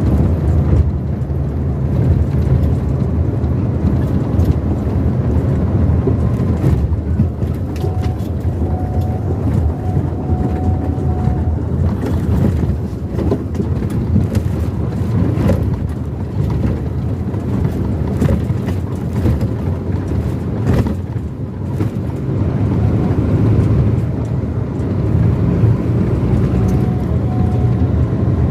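Vehicle driving on a road: a steady low rumble of engine, tyres and wind.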